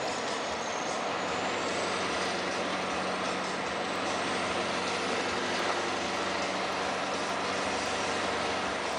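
Scania R560's straight-piped V8 diesel running steadily as the truck drives along, heard from inside the cab with tyre and road noise.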